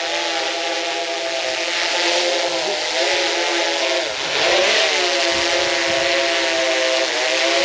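Drone propellers whining at a steady pitch while it hovers, the pitch dipping and recovering as it adjusts, about four seconds in and again near the end.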